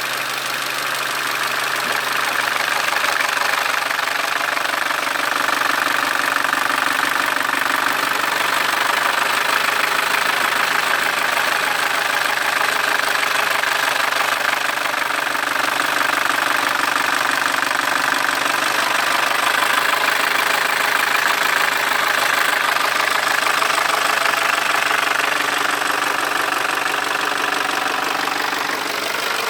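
Audi CJE 1.8 TFSI (EA888 gen3) engine running steadily with an extraneous mechanical noise, the fault the video sets out to show. It grows a little louder a few seconds in and eases off near the end.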